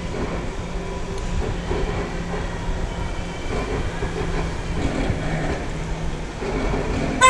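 Wheels of a low-slung camera rig rolling across a polished concrete floor: a steady rumble with light clatter and a faint steady hum.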